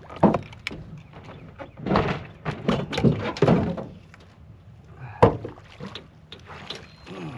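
Knocks and a scraping clatter as a long-handled landing net is pulled out and handled in a fishing boat, with a sharp knock just after the start and the loudest knock a little past halfway.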